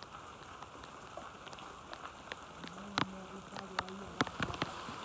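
Rain: scattered sharp drops hitting leaves and ground over a soft steady hiss. A low steady buzz comes in for about a second just past the middle.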